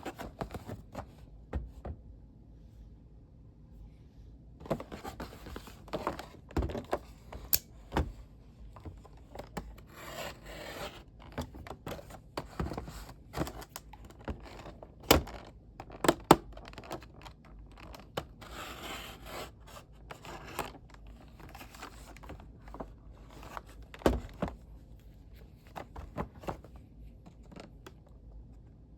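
An action figure's cardboard and plastic packaging being handled and opened by hand: rustling and scraping with scattered sharp taps and clicks, the loudest two about fifteen and sixteen seconds in.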